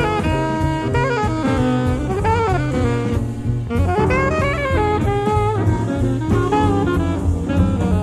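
Small jazz group: an alto saxophone plays a melodic line with bending notes over drum kit and acoustic bass. Taped off an FM broadcast onto a cassette, with slightly reduced sound quality.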